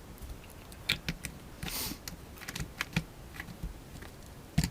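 Scattered light clicks and taps from handling a vape mod and its RDTA tank, with a short breathy rush about two seconds in.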